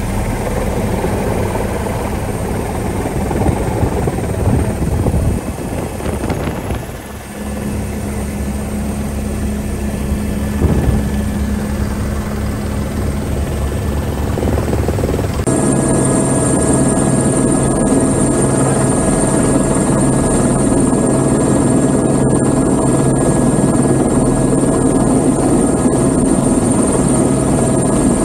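Airbus H125 helicopter's turbine and rotor running steadily, heard from on board. About halfway through the sound changes abruptly to a closer in-cabin recording with a steady high turbine whine over the rotor.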